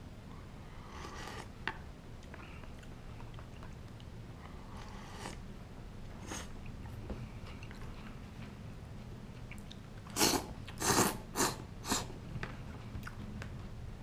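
A person eating ramen: a few soft sips and chewing sounds, then about ten seconds in a quick run of four loud noodle slurps.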